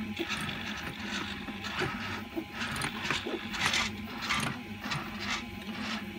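Small hobby servos whirring in short, jerky bursts as they swing a pair of 3D-printed R2-D2 utility arms in and out. The motion is jumpy because they are driven from a basic servo controller.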